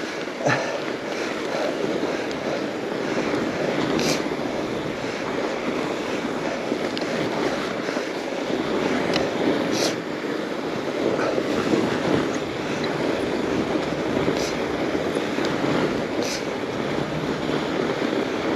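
Mountain bike descending a groomed trail: a steady rush of tyre and wind noise, broken by a few sharp clicks and knocks from the bike over bumps.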